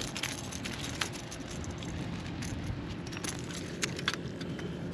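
Cloth rustling against a body-worn microphone, with scattered light clicks and rattles of handling over a steady low rumble.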